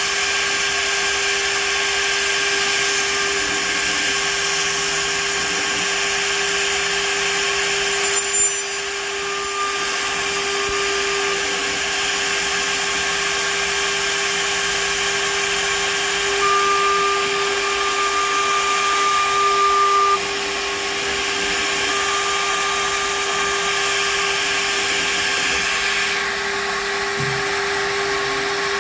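DMC2 CNC mill's spindle running with a steady whine while a chamfer mill cuts the edges of a 6061-T6 aluminium part. A higher cutting tone comes and goes several times as the tool engages the metal.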